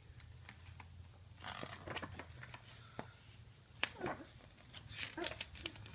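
Pages of a picture book being handled and turned by small hands: faint paper rustles and light taps, with one sharper click a little before the four-second mark.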